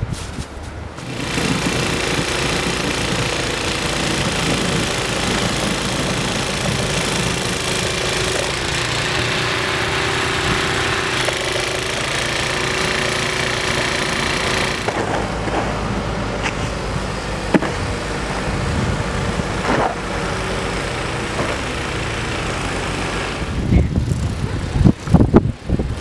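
Wheel loader's engine running steadily as it pushes snow with a front plow blade. Near the end, a quick run of sharp scrapes and knocks from a shovel.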